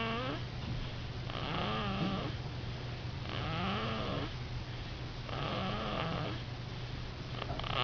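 A sleeping baby snoring, a raspy, wavering snore on each breath about every two seconds.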